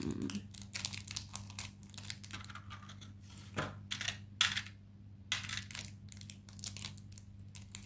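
Clear plastic blister pack being handled and turned over in the fingers: a run of irregular light clicks and crinkles.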